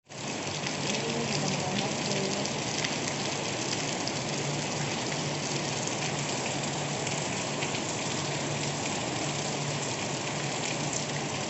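Heavy rain falling steadily: a dense hiss of drops, fading in at the very start, with a faint low hum underneath.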